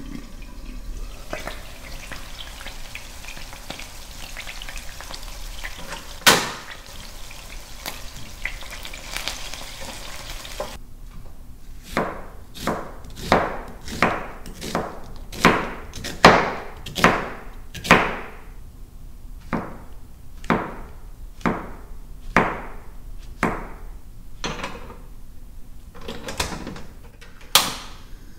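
Kitchen sounds: a steady hiss with one sharp knock about six seconds in, then from about eleven seconds a run of sharp knocks on a hard surface, one or two a second, each ringing briefly.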